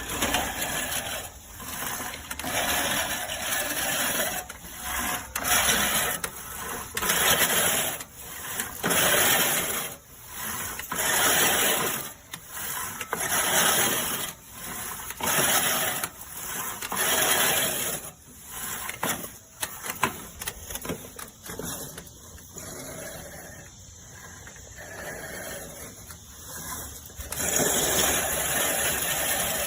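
A LawnMaster 16-inch five-blade push reel mower cutting tall grass and weeds in repeated pushes. Each push gives a whirring burst of spinning blades about a second long, with short pauses between, and the mowing goes quieter for several seconds in the last third.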